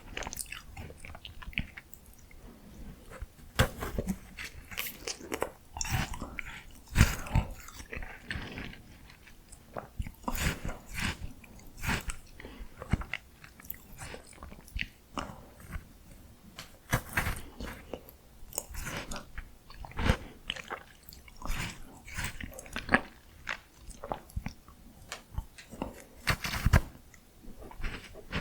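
Close-miked eating of miniature ice cream: crisp bites and chewing crunches at irregular intervals, about one every second or so.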